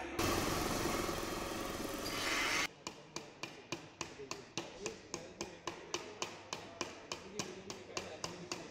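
Pillar drill press running as it drills sheet metal, cutting off about two and a half seconds in. Then a hammer tapping metal parts of a roller skate into place, in steady sharp blows about three a second.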